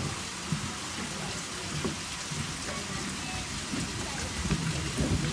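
Steady hiss of falling water, with faint distant voices and a few soft low knocks.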